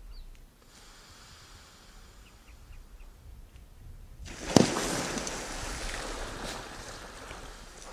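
A crocodile lunging from the water at a drinking warthog: a sudden loud splash about four and a half seconds in, followed by a few seconds of churning, spraying water as the warthog bolts.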